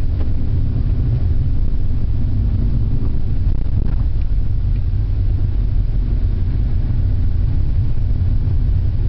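Car interior noise while driving: a steady low rumble from the engine and the tyres on the road, heard inside the cabin.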